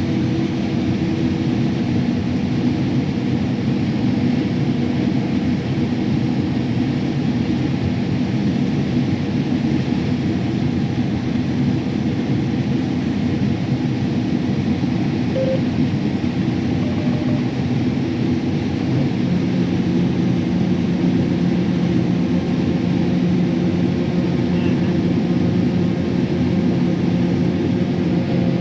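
Large farm machine's diesel engine and drivetrain running steadily, heard from inside the cab, a constant drone with several low hums. A new steady low hum joins about two-thirds of the way through.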